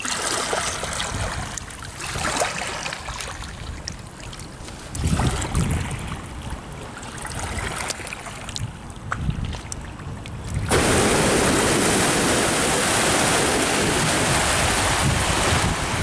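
River water lapping at the foreshore edge, with gusts of wind buffeting the microphone. About ten seconds in it switches abruptly to a steady rush of choppy river waves and wind.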